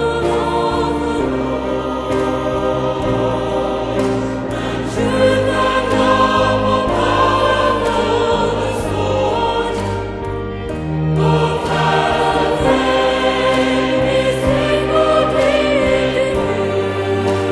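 Choir singing a worship song, with music underneath.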